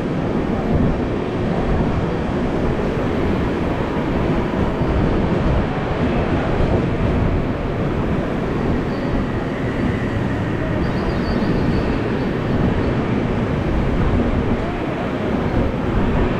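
Passenger express train running along the track: a steady, even rumble of the coaches' wheels on the rails.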